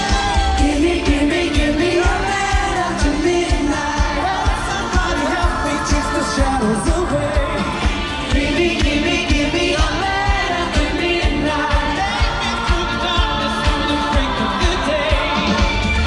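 Live pop band performance: sung vocals over a band with a steady drum beat.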